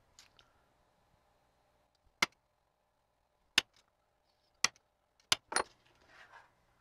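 Center punch snapping down onto a sheet-metal blank to make witness marks at its corners. It gives several sharp metallic clicks a second or so apart, the last ones closer together.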